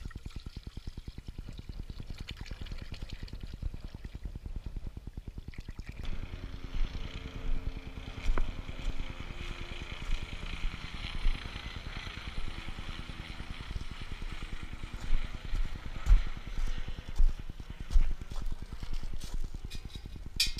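Water poured from a plastic bottle into a steel pot, over a steady low rumble of wind on the microphone; after a change about six seconds in, a denser hiss with scattered thumps and knocks.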